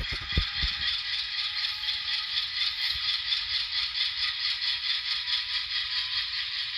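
Sound-decoder diesel engine of an N-scale GE Dash 9-44CW locomotive running steadily, played through the model's tiny onboard speaker: a tinny, rattly engine sound with a fast even flutter and no bass. A few low knocks in the first second.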